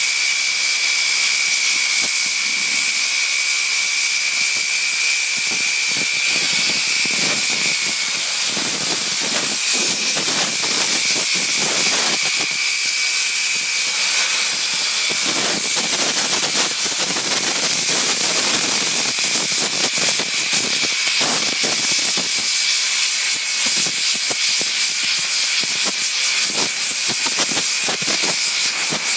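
CNC cutting table's torch cutting metal plate: a loud, steady hiss with a thin high tone held throughout, and irregular crackling through the middle.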